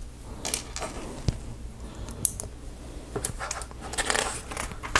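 Small plastic Lego pieces clicking and rattling as they are handled and pressed together, with scattered sharp clicks and a denser rustle near the end.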